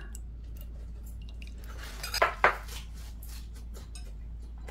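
Metal chopsticks and spoons clinking and tapping against bowls and dishes, with a short cluster of sharper clinks about two seconds in and scattered lighter taps around it.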